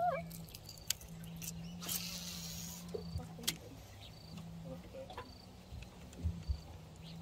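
Bow-mounted electric trolling motor humming in on-off stretches, with a brief hiss about two seconds in and light scattered clicks.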